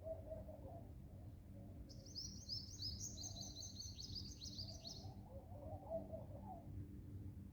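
Birds calling: a fast run of high chirps for about three seconds from about two seconds in, with lower warbling calls near the start and again later, over a steady low background rumble.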